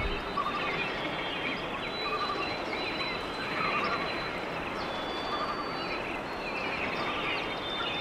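Forest ambience: many birds chirping and calling over one another, a short trilled call recurring every couple of seconds, with thin steady high insect-like tones.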